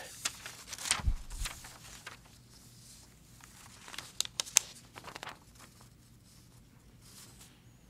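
Quiet room tone with scattered handling noises at a table: small clicks and rustles, and a soft low thump about a second in.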